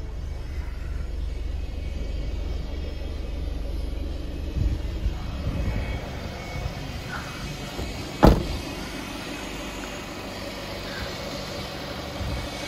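Peugeot Boxer's 2.0 BlueHDi diesel engine idling, a low steady hum, with a single sharp knock about eight seconds in.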